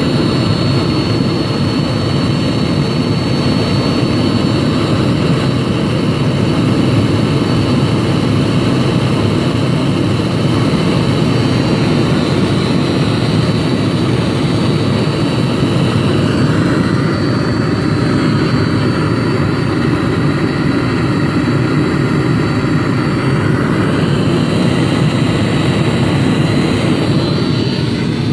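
Webasto Thermo Top V diesel-fired heater running: a steady roar from its burner and combustion fan, with a thin high whine over it.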